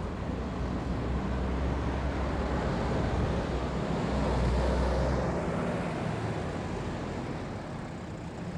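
A passing road vehicle: a low rumble with a hiss that swells to its loudest about four to five seconds in, then fades.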